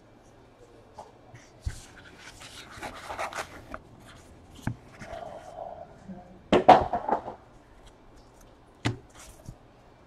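Trading card packs being opened and cards handled at a table: rustling with scattered sharp clicks and taps, the loudest cluster about two-thirds of the way in.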